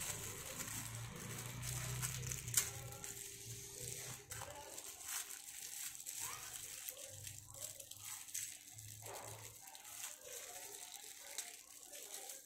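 Thin clear plastic bag crinkling and crackling as fingers work it open, with irregular small crackles and one sharper crackle about two and a half seconds in.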